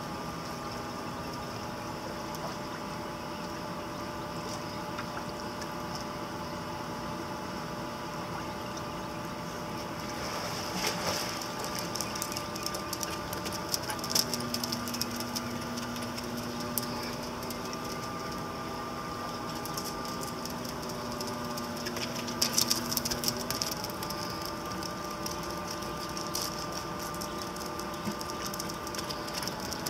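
Steady hum of a swimming-pool pump motor, holding several fixed tones whose mix shifts partway through, with short clusters of clicks and splashy crackles around the middle and again about three-quarters of the way in.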